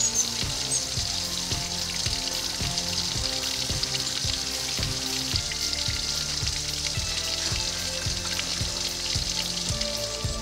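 Thin stream of water trickling and splashing over rock at a small bird drinking spot, a steady hiss, with background music carrying low notes and a regular beat underneath.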